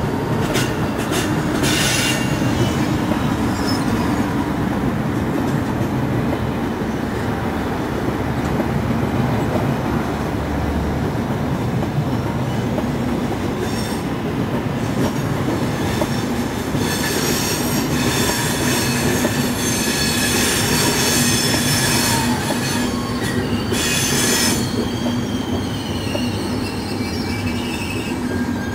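SBB Re 460 electric locomotive and its passenger coaches rolling slowly through the station with a steady rumble of wheels on rail. There are a few sharp clicks near the start, and high-pitched wheel squeal in several tones comes and goes through the second half as the coaches pass.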